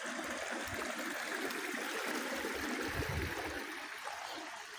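Small rocky mountain stream running, a steady even rush of water.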